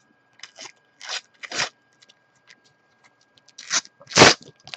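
A stack of Panini paper stickers being handled and shuffled, rustling and scraping in several short bursts. The loudest comes about four seconds in.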